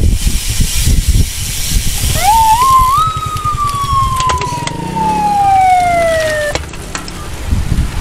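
A siren winds up in pitch over about a second, then slowly sinks for about three and a half seconds before cutting off abruptly. Wind rushes on the microphone underneath.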